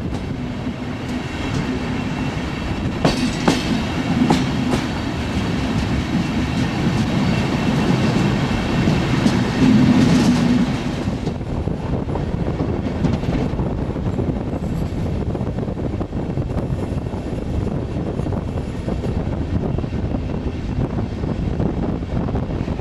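A DB n-Wagen passenger coach rolling along the track, heard from an open window: wheels clattering over rail joints and points, with sharp clicks a few seconds in and a louder, squealing stretch about ten seconds in. Later the sound eases into a steadier rumble with wind rushing past.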